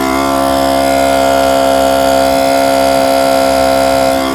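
A 12-volt portable tire compressor powered from the car's cigarette lighter, running with a loud, steady buzz as it pumps air into the freshly plugged tire.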